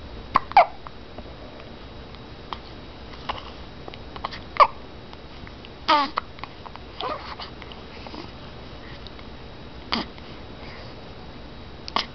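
Hiccups: short, sudden hiccup sounds at uneven intervals of one to four seconds, some with a quick squeaky drop in pitch.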